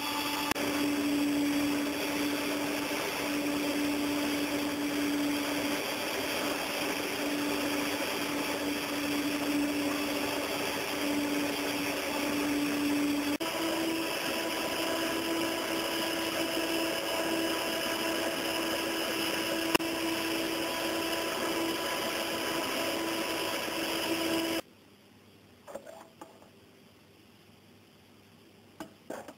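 Electric hand mixer whipping egg and sugar batter in a stainless steel bowl: a steady motor whine that steps slightly higher about 13 seconds in and cuts off suddenly near the end, followed by a few faint knocks.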